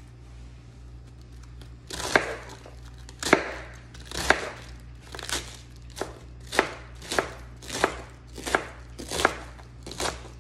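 Kitchen knife slicing cabbage on a plastic cutting board: a crisp crunch ending in a knock against the board with each cut. The cuts start about two seconds in and come steadily faster, reaching about one and a half a second.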